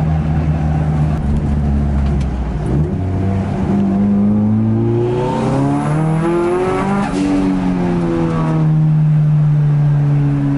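Nissan Silvia S13's turbocharged SR20DET four-cylinder engine heard from inside the cabin while driving. It runs steady at first, then pulls up in pitch under acceleration from about three seconds in, drops around seven seconds in, and settles to a steady drone.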